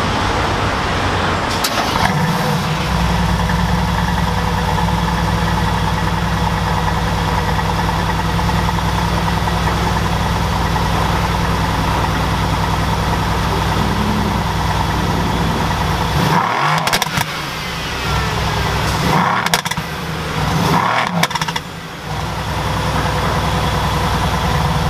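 Exhaust of a Mercedes-AMG GT S's twin-turbo V8 starting up with a loud flare in the first two seconds, then settling to a steady idle. About two-thirds of the way in it is blipped three times in quick succession, each a short rise in revs, before it falls back to idle.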